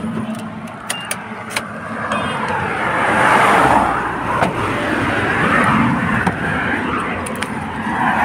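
Car door handle and latch clicking a few times as the front door is opened. This is followed by a broad outdoor rushing noise that swells twice, with scattered handling clicks and steps.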